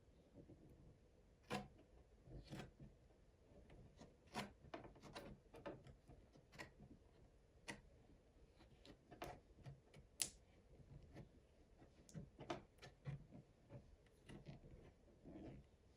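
Faint, irregular clicks and light knocks, roughly one every second or so, over a quiet background.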